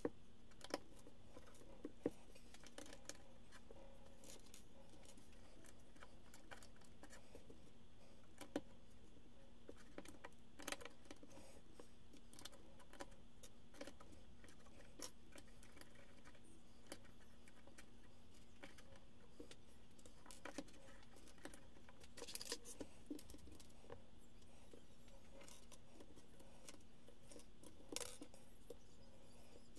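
Small plastic Lego bricks clicking and tapping as loose pieces are picked through on a wooden tabletop and fitted onto a model. There are a few sharp clicks scattered through, with a short cluster of rattling about two-thirds of the way in, over a faint steady hum.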